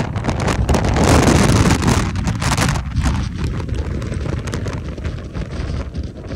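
Storm wind in gusts of up to 55 knots sweeping across a tall ship's deck and buffeting the microphone: a heavy, unsteady roar, strongest in the first two seconds and easing somewhat after.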